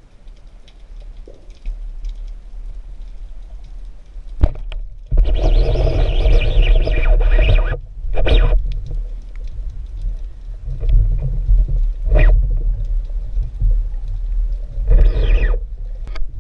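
Underwater recording noise: a constant low rumble of water moving against the camera, with a sharp click about four and a half seconds in and several louder hissing bursts, the longest lasting nearly three seconds.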